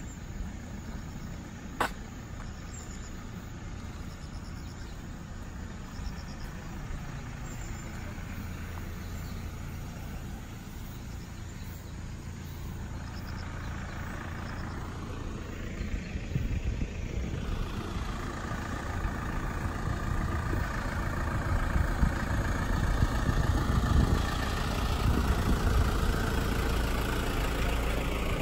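A vehicle engine idling steadily, getting louder over the second half. A single sharp click about two seconds in.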